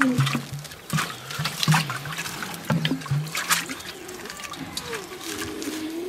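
Liquid pouring from a plastic jerrycan into a small metal pot, trickling and splashing, with several sharp knocks and clinks as the can and pot are handled.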